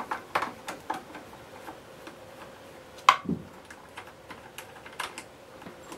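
A screwdriver being turned in the screw of a vintage Hoover Junior's handle bail to slacken it off: a run of small, irregular metal clicks and ticks, with one sharper click about three seconds in.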